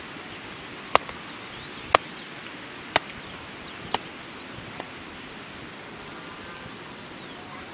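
A hatchet chopping firewood into kindling: sharp, clean strikes about once a second, five in all, stopping about four seconds in.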